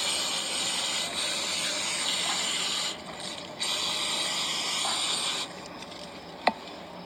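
ACDelco aerosol cleaner spraying into a starter motor in two long hissing bursts, with a short break about three seconds in. The spray stops about five and a half seconds in, flushing black dirt out of the motor.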